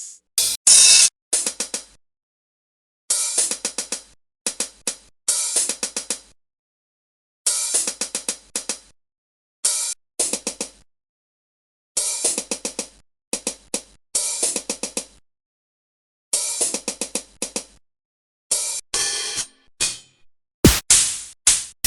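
Cymbals struck in quick clusters of short, bright hits, each cluster lasting about a second and separated by silent gaps. Near the end comes one louder, longer-ringing hit.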